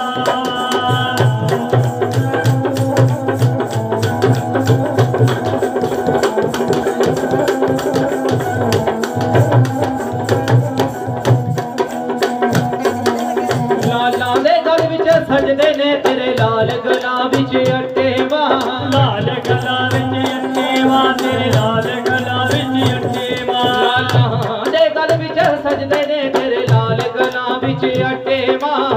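Instrumental interlude of devotional folk music: a bowed string instrument carries a wavering melody over steady hand-drum beats, with the melody turning more ornamented about halfway through.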